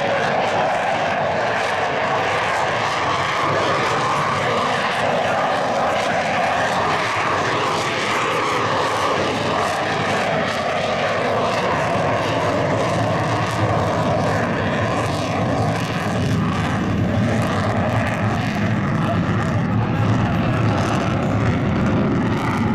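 F-35C Lightning II's single Pratt & Whitney F135 afterburning turbofan, a loud, steady jet roar as the fighter flies a slow, nose-high pass. A deeper rumble builds over the last several seconds.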